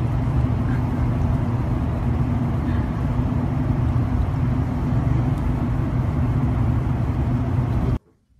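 Steady low rumble of a running car engine, with a steady low hum, that stops abruptly near the end.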